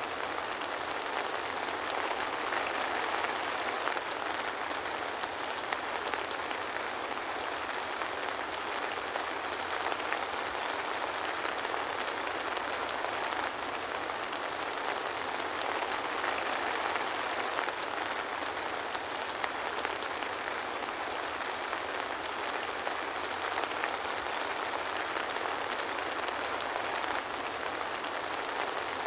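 Steady soft rain falling without thunder, a dense even patter of drops on a hard surface.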